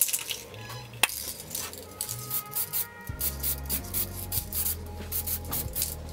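Background music with a steady beat and a bass line that comes in about halfway, plus a single sharp click about a second in.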